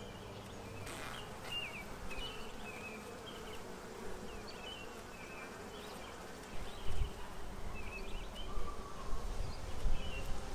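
Russian honeybees buzzing in a steady low hum around a brood frame full of bees lifted from a nuc. From about halfway in, low rumbling bumps come and go over the hum.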